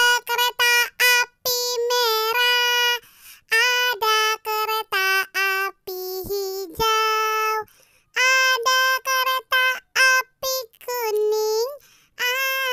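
A high, child-like singing voice singing a simple children's song in short, separate syllables, mostly on one or two notes, with no accompaniment.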